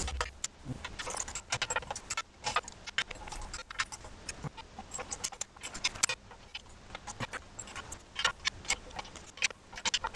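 Torque wrench ratcheting on the small assembly bolts of a three-piece wheel: a run of irregular, rapid metallic clicks and clinks as the bolts are tightened.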